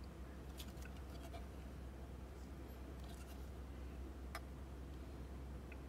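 Faint rubbing and a few light ticks of trading cards being handled, over a steady low hum.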